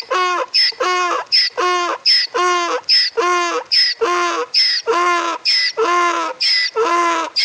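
Donkey braying in a long, steady hee-haw: short high squeals on the in-breath alternate with longer, lower honks on the out-breath, about nine cycles in a row without a break.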